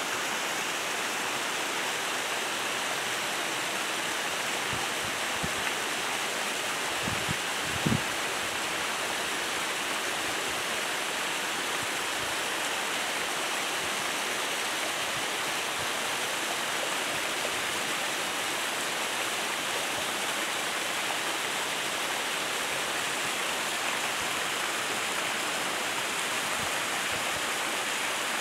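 Steady rush of running water. A few soft low thumps come through about five to eight seconds in, the loudest near eight seconds.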